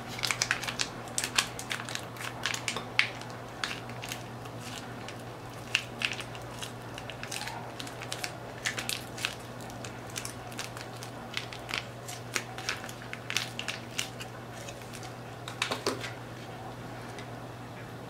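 Plastic conditioner sachet crinkling as it is squeezed out over a plastic bowl, with a spoon scraping and clicking in the bowl. Irregular crackles and clicks keep on throughout, over a steady low hum.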